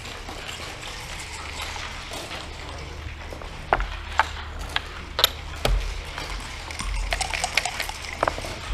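Backgammon checkers clicking against a wooden board as they are moved, a few sharp taps about halfway through. Near the end, a cluster of clicks as dice are rattled in a dice cup, then a heavier knock as they are thrown onto the board, over a low steady hum.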